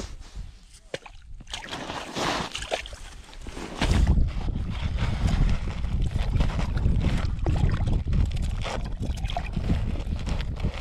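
Water sloshing and splashing in an ice-fishing hole as an arm reaches down into it to land a hooked fish. From about four seconds in, a heavy low rumble with crunching and scraping comes from the jacket sleeve and gear rubbing against the snow and the body-worn camera.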